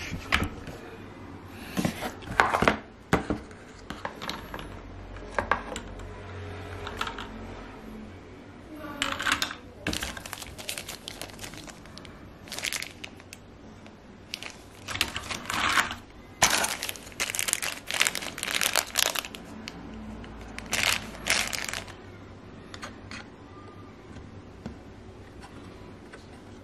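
Plastic packaging crinkling and rustling as it is handled, in irregular bursts with short pauses between them.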